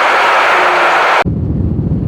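A loud, steady rushing noise of travel cuts off suddenly a little over a second in, and background music with a heavy low beat takes over.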